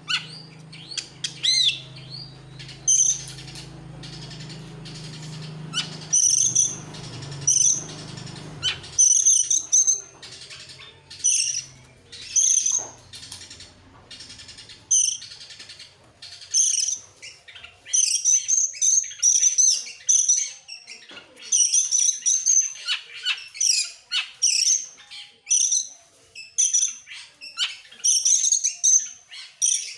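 Oriental magpie-robin (kacer) singing in full, continuous song: quick, high whistled phrases following one another with short gaps. A low steady hum runs underneath and stops about nine seconds in.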